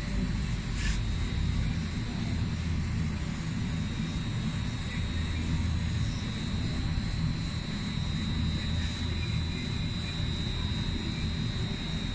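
Electric drive of a welding positioner table running steadily: a low hum and rumble with a thin high-pitched whine over it, and a click about a second in.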